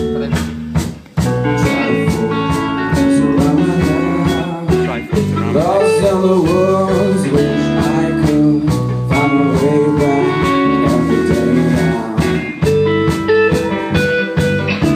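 Blues-rock music: guitar playing over a steady drum beat, with bending notes about six seconds in.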